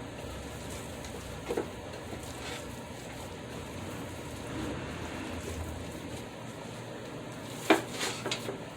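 Hands mixing and kneading a ground beef and breadcrumb mixture in a bowl: soft, faint squishing over a steady low hiss, with a short knock a moment in and a couple of sharper knocks near the end.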